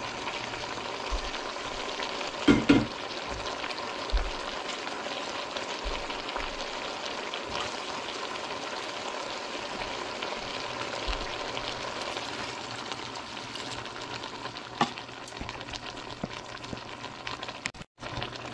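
A pot of pinakbet vegetables and chicken in shrimp-paste sauce sizzling on the stove, a steady hiss with small crackles. A single knock about two and a half seconds in.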